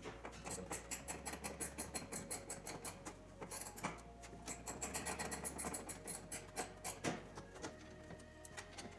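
Background electronic music with fast, even high ticks over held chords and a bass line that changes every second or two.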